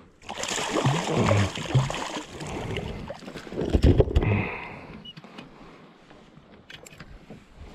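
A freshly caught kahawai being landed and handled on a plastic kayak: splashing, rustling and knocks against the hull, loudest about four seconds in. A few sharp clicks come near the end.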